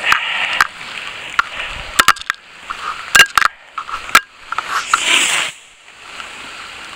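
Close handling noise: scattered sharp clicks and taps, and a short rustle about five seconds in, over a faint hiss of rain.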